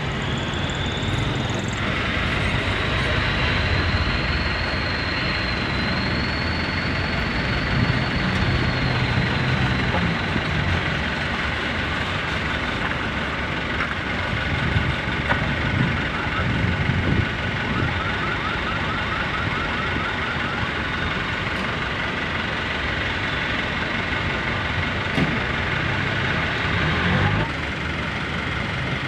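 Truck engines running low and steady, with a continuous high-pitched whine over them that glides up a little in the first seconds and cuts off shortly before the end.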